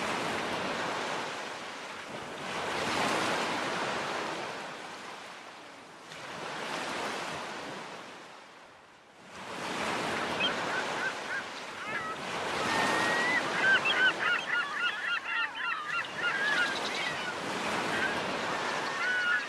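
Surf washing in, swelling and fading in slow waves, with birds calling over it in warbling, chattering runs from about halfway through.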